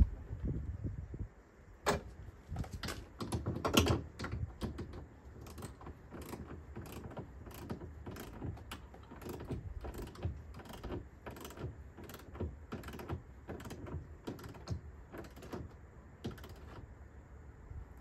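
A run of light, irregular clicks and taps, roughly two a second, from hand work inside an open truck door, with a few louder knocks in the first few seconds.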